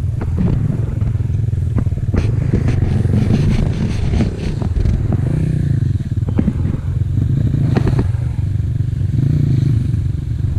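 Dirt bike engine running steadily, with scattered clicks and knocks over it.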